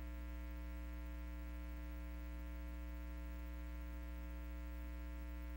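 Steady low electrical mains hum with a stack of buzzy overtones, unchanging, and no other sound.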